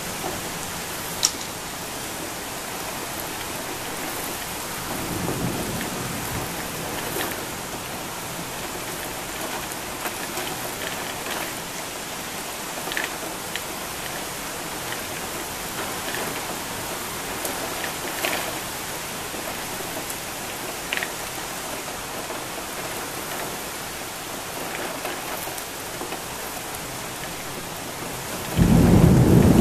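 Heavy rain pouring steadily, with scattered sharp ticks of drops landing close by. A low rumble of thunder swells about five seconds in, and a loud crack and rumble of thunder breaks in suddenly near the end.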